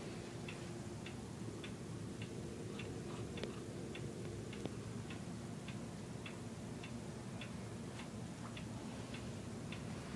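A clock ticking steadily, a little under two ticks a second, over a faint low steady hum.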